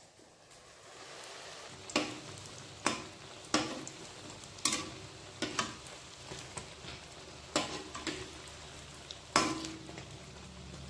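Pakoras deep-frying in hot oil in an iron kadai: a steady sizzle that swells about a second in. A metal spatula knocks and scrapes against the pan about seven times as the fritters are turned.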